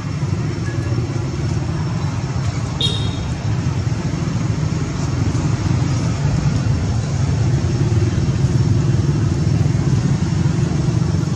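Steady low rumble with an even, unbroken level, the kind of sound a running motor vehicle or wind buffeting the microphone makes.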